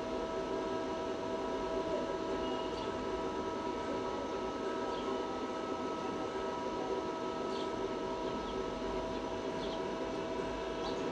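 Steady droning hum with several constant whining tones over it, running evenly throughout, with a few faint ticks.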